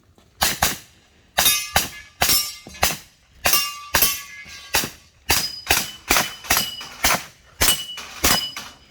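Rapid pistol fire, about eighteen shots, mostly in quick pairs a third of a second apart, as targets are engaged in turn. Several shots are followed by the short ring of steel targets being hit.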